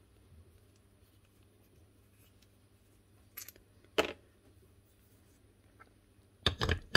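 A few sharp clicks and taps of small tool parts being handled on a workbench: one about four seconds in, and two or three close together near the end.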